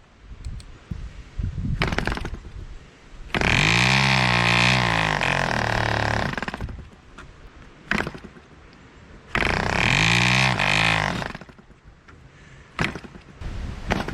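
1947 Drone 4.85 cc diesel model airplane engine firing in two short runs of about three and two seconds, its speed rising and then sagging before it quits. Sharp clicks come in the quiet gaps between runs.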